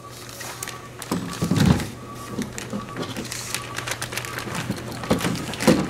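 Plastic wrapping on a rifle crinkling and rustling as the wrapped rifle is lifted out of a cardboard box and handled on a table, with heavier thumps about a second and a half in and again near the end as it is set down.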